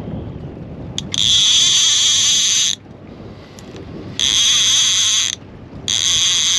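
Multiplier fishing reel's ratchet buzzing loudly in three long bursts as line is wound in on a hooked fish, over wind and water noise.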